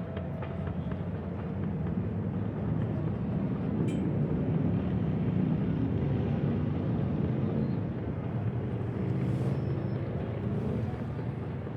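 Low rumble of passing motor traffic in the city ambience, swelling louder from about two seconds in and easing off toward the end.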